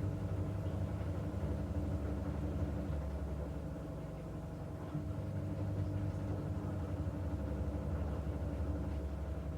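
Washing machine running: a steady low motor hum with a thin higher tone that drops out for a couple of seconds partway through.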